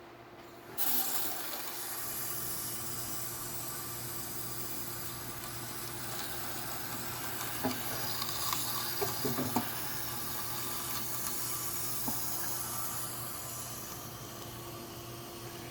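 Water running steadily into a patched, rust-holed car gas tank, filling it for a leak test of the repairs. The flow starts suddenly about a second in.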